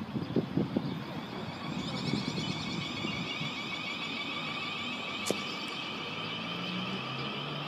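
Class 444 Desiro electric multiple unit pulling away, its traction motors giving a steady high whine with a low hum beneath. A few low thumps come in the first second or two, and a single sharp click about five seconds in.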